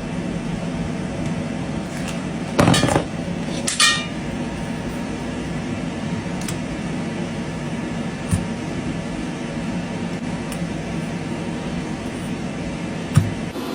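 A steady machine hum, with small hard objects clinking and clicking now and then: two short clatters about three and four seconds in, the second with a brief ring, then a few single clicks.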